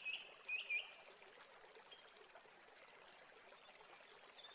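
A spoon stirring a thin, liquid mix of milk, water, oil, sugar and egg in a bowl, with faint sloshing. In the first second there are a few short, high, paired chirps, and after that only a faint hiss remains once the stirring stops.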